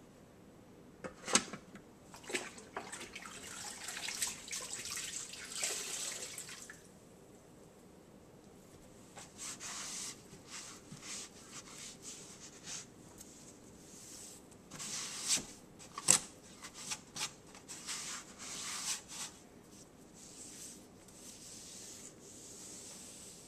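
Handling noises at a Ninja slow cooker: a few sharp clicks and knocks, the loudest about a second in and another about sixteen seconds in, between stretches of soft rubbing and rustling.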